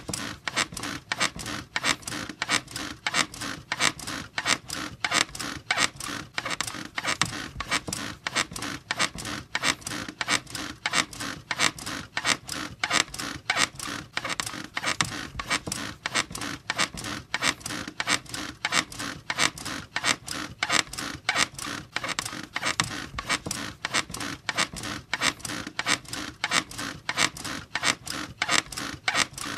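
Bed squeaking in a steady, fast, regular rhythm, one creak after another without a break.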